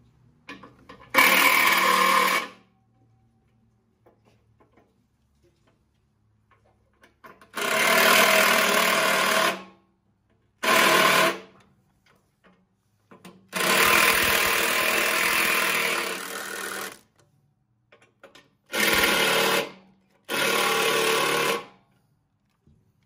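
Power tool run in six short bursts of one to three seconds each, with a buzzing motor tone, starting and stopping abruptly.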